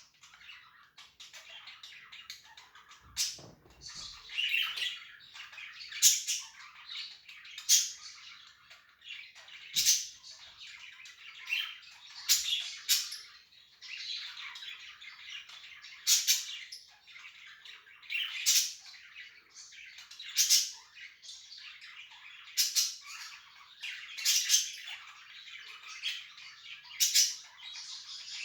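Budgies chirping and chattering in a steady warble, with loud, sharp squawking calls every second or two.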